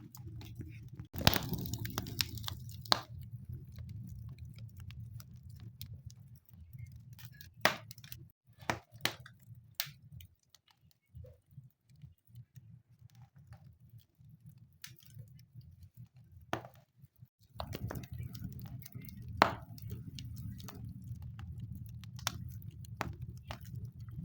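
Wood fire crackling in a fireplace: scattered sharp pops and snaps over a low, steady rumble. The rumble drops away for several seconds in the middle, then returns.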